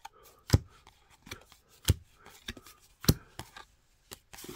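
Baseball cards being flipped through by hand and dropped onto a pile on the table: a string of sharp slaps and flicks, roughly one a second, the loudest about half a second in, with faint card rustling between.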